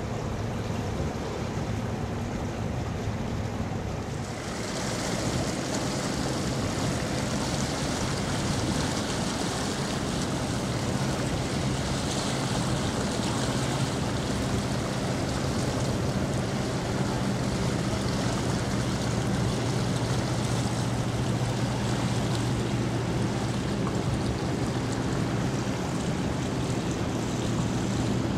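A passing ship's engine drones low and steady under the rushing hiss of water along its hull. About four seconds in, the water hiss grows louder and brighter.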